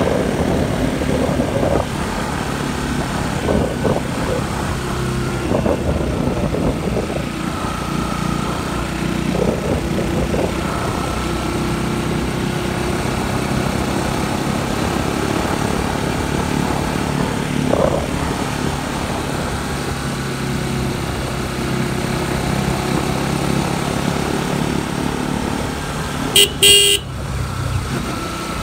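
Motorcycle engine running steadily while riding, with two short horn blasts near the end.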